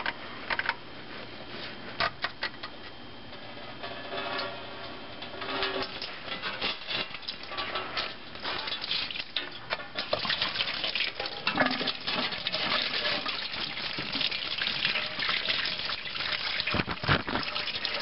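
Engine coolant draining from a pulled-off lower radiator hose, pouring and splashing into a drain pan: the radiator is being emptied. At the start there are clicks and rubbing as the stuck rubber hose is worked loose. The pour builds a few seconds in and then runs on steadily.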